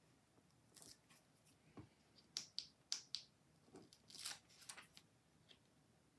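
Faint, scattered light ticks and taps of hands peeling the backing from small foam-tape squares and pressing them onto cardstock, with a quick cluster of ticks about halfway through.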